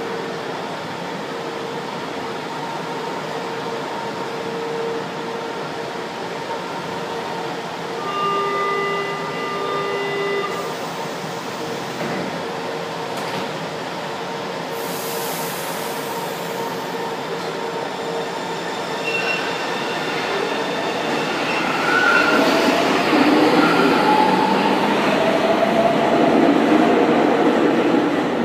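Metro trains in an underground station. A steady running hum from a train at the platform, with a held electronic beep of a few notes for about two seconds some eight seconds in, and a short hiss of air around fifteen seconds. Over the last third another train comes in, growing louder with shifting whines and wheel squeal.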